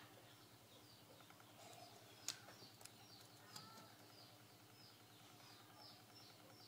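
Faint bird chirping: a short falling chirp repeated evenly, two or three times a second, over a low steady hum, with a few light clicks, the sharpest about two seconds in.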